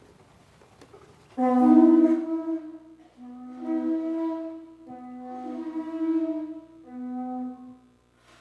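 A wind instrument blown in four long phrases, each moving between two low held pitches, the first phrase the loudest.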